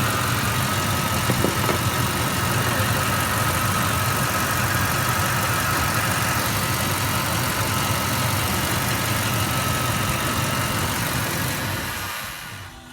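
1997 CNG Ford F-150 engine idling steadily with a misfire from one bad ignition coil. The sound fades out near the end.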